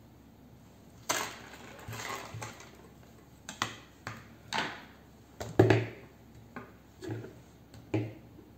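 Handling noises from a hand blender's small circuit board being worked by hand and with pliers: about a dozen short clicks, scrapes and knocks, the loudest a little past halfway.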